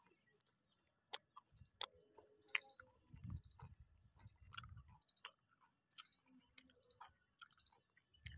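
Near silence, with faint scattered clicks and a low rumble from about one and a half to five seconds in.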